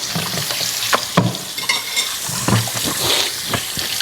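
Water running steadily from a kitchen tap into the sink, with a few light knocks.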